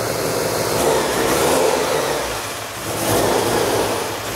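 Bridgeported Mazda 13B rotary engine in an FC RX7 running and being revved, its level swelling and falling back twice.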